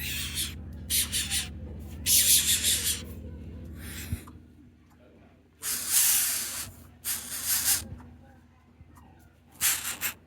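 A series of short, irregular hissing bursts, about eight of them, each under a second, over a steady low hum.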